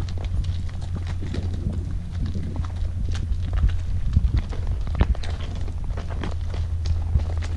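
Horses walking on a rocky trail, their hooves clopping irregularly on stone and gravel, over a steady low rumble.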